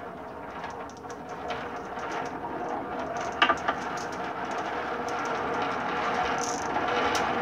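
A train of marbles rolling down a wooden spiral track: a continuous rolling rumble that grows louder as more marbles come down, with light clicks of marbles knocking together and a couple of sharper knocks about three and a half seconds in.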